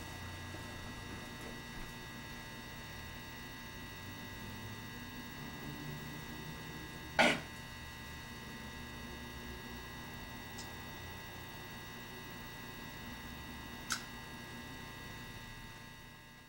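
Steady electrical hum with several fixed tones. About seven seconds in there is a single sharp knock, and a fainter click comes near the end.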